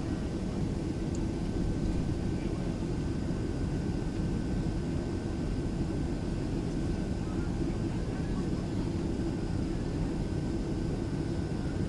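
Steady cabin noise inside a Boeing 767-300 airliner in flight: a low, even rumble of engines and airflow with a faint steady whine above it.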